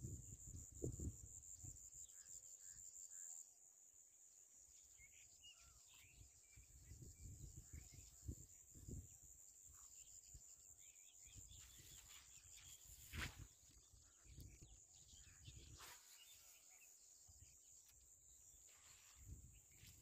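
Near silence: faint outdoor ambience with a steady high insect whine, a few faint chirps and soft low knocks, and one sharp click about two-thirds of the way through.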